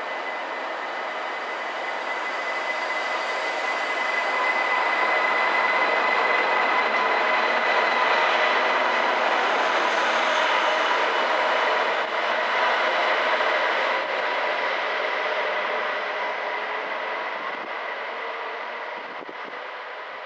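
An ICE 1 high-speed train pulling out of the station under electric power, with a steady whine over the rolling noise. The sound swells as the train goes past, holds for several seconds, then fades as it moves away.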